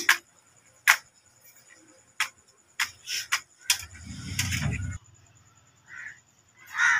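Matches struck against a matchbox, several sharp scrapes and clicks over the first few seconds, then a gas stove burner lighting with a low rush of flame about four seconds in.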